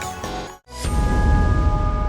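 Background music. It cuts out for a moment just over half a second in, then a different passage starts with held steady tones over a deep low rumble.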